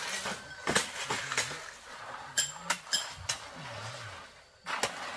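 Hard objects knocking and clinking together, with a few sharp metallic clinks that ring briefly about halfway through. Faint voices run underneath.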